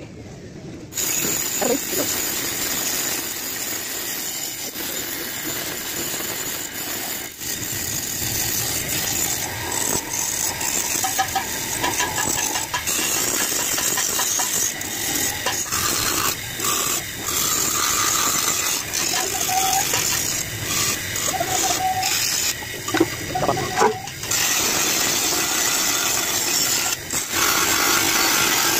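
Motor-driven grinder wheel spinning against a motorcycle's painted steel side cover, a steady rasping grind as it strips the paint to bare metal. It starts suddenly about a second in and dips briefly a few times near the end as the part is moved on the wheel.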